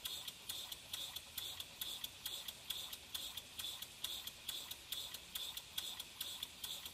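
PM Research model steam engine running slowly on live steam, ticking and puffing in a quiet, even beat of about four a second.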